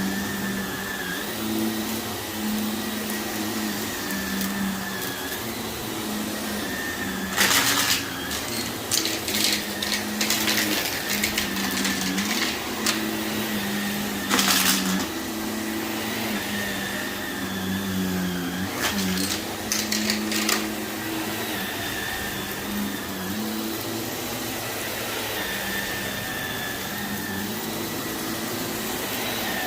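Canister vacuum cleaner running on carpet, its motor pitch wavering as it is pushed back and forth. From about seven seconds in until about twenty seconds, loose debris is sucked up with crunchy crackles and rattles, the loudest bursts around seven and fourteen seconds in.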